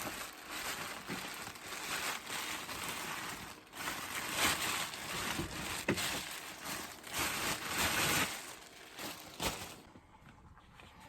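Packaging rustling and crinkling in irregular swells as a newly bought accordion is unwrapped and taken out.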